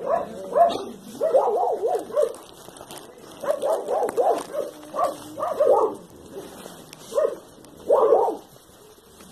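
Dogs whining and yipping in quick runs of short, pitch-bending calls. A few single calls come near the end.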